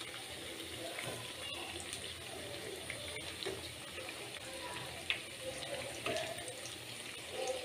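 Masala vadas (chana dal fritters) deep-frying in hot oil in a kadai: a steady bubbling sizzle, with a few faint clicks as a steel spoon turns them over.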